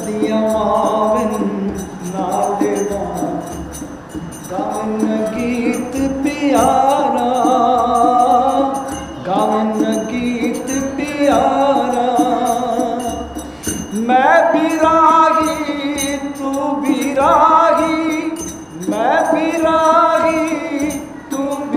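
A man singing a devotional Punjabi verse in long, drawn-out, ornamented phrases, accompanied by dholak hand drums and a jingling percussion beat.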